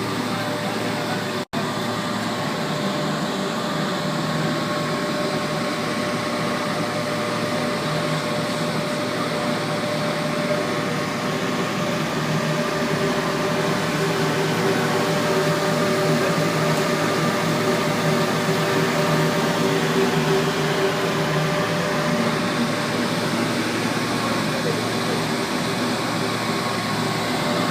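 Biomass powder burner running: a steady blower-fan noise with a constant hum, broken only by a split-second dropout about one and a half seconds in.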